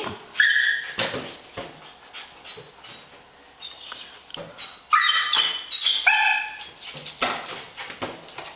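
Miniature dachshund puppy giving short high-pitched yips, a couple just after the start and a cluster about five seconds in, with light taps and knocks in between.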